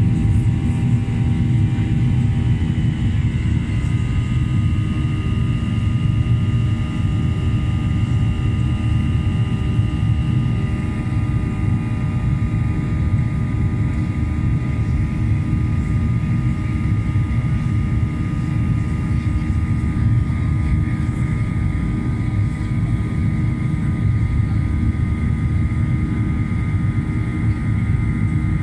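Boeing 737-800's CFM56-7B turbofan engines heard inside the passenger cabin during the climb: a steady, loud rumble with several high whining tones over it. The highest whine fades about a third of the way through.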